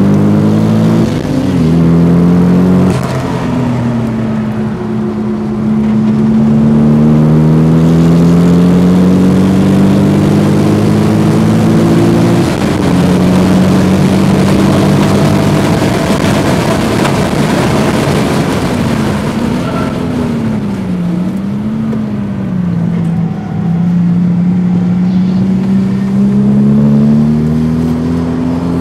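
Toyota Supra's turbocharged straight-six engine heard from inside the cabin at track speed, revving up through the gears with the pitch dropping at each shift. The revs waver up and down for a few seconds about two-thirds of the way in, then climb steadily again near the end, over steady tyre and wind noise.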